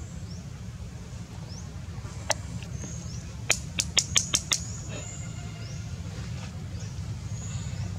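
Outdoor background with a steady low rumble and faint, short rising bird chirps repeating about once a second. A quick run of about six sharp clicks comes through the middle.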